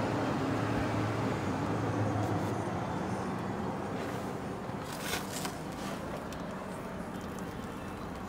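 Steady low hum and rushing noise of a car cabin with the car switched on, with a few short knocks about five seconds in as the handheld camera is moved between the seats.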